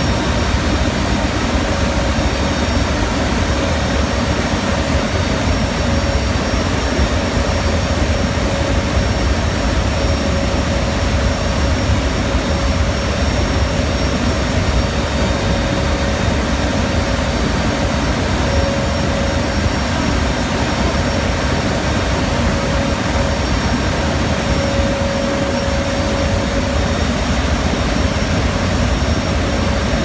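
Steady loud noise inside a C-130H Hercules cargo hold in flight with the rear ramp and cargo door open: the four Allison T56 turboprops running, mixed with air rushing past the open ramp. A steady whine-like tone runs through the noise.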